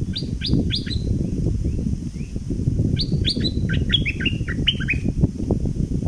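Stripe-throated bulbul singing: three sharp, steeply falling whistled notes, then after a pause a quicker run of about eight falling notes.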